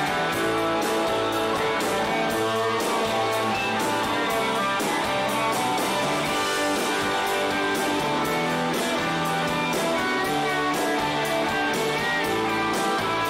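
Live rock band playing: two electric guitars over drums, with cymbal strikes keeping a steady beat.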